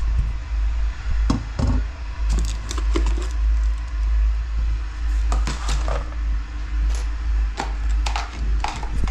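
Metal cooking pots, lids and plastic containers clinking and knocking together as they are picked up and moved about, a dozen or so short sharp knocks scattered through, over a steady low rumble.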